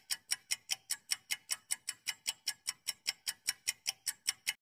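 Clock-ticking sound effect for a quiz countdown timer: rapid, even ticks about five a second, stopping just before the end.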